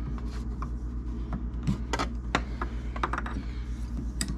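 Irregular metal clicks and scrapes as a spanner wrench works the chrome coupling collars of beer faucets mounted on a refrigerator's side, over a steady low hum.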